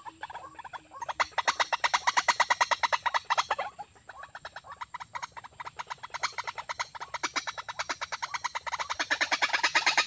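Rapid pulsed croaking calls, about ten notes a second, strong at first, fading a little after three seconds and building again near the end, over a steady high hiss.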